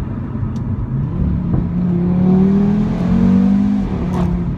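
2015 Audi RS3's turbocharged 2.5-litre five-cylinder engine accelerating, heard from inside the cabin: its pitch rises about a second in, climbs slowly, and drops back near the end.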